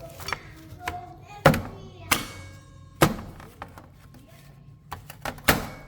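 A series of sharp knocks and clatters as hard objects are handled and set down, four of them loud and spread over about six seconds; one leaves a brief metallic ring.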